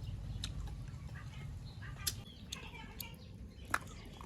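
A few sharp clicks and knocks over a steady low rumble, with faint bird-like chirps.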